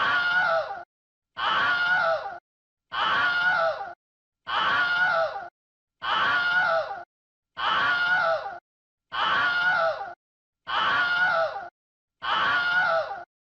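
Recorded sound effect of a person screaming: the same scream of about a second repeats about nine times, with a short silence between each.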